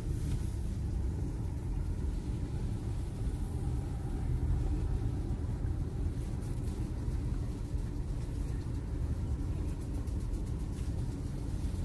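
Steady low rumble of a car's engine and tyres heard from inside the cabin while driving slowly on a paved road.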